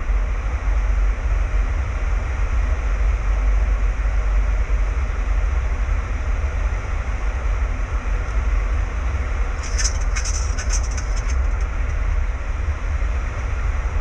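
Steady in-flight noise on a Boeing 737-800 flight deck during approach: a deep rumble under the rush of air, in bumpy air. About ten seconds in comes a short run of high crackling clicks.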